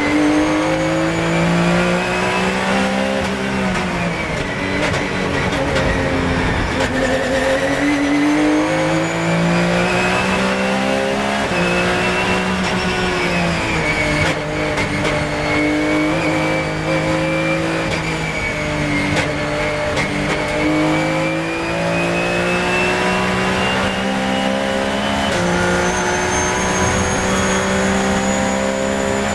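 Onboard sound of a Porsche 997 GT3 Cup's flat-six race engine under hard acceleration, the pitch climbing through each gear and dropping at every shift. A high whine rises and falls along with the engine.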